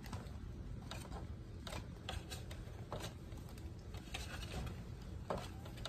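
Irregular light clicks and taps of plastic as a ZL1 1LE-style grille is pushed and shifted into a 5th-gen Camaro's front bumper cover, with a slightly sharper click near the end.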